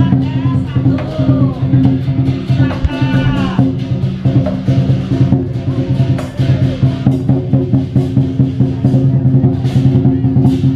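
Chinese dragon-dance percussion: a drum with cymbals and gong playing a steady beat of about three to four strikes a second over a low ringing hum. A voice calls out briefly near the start and again about three seconds in.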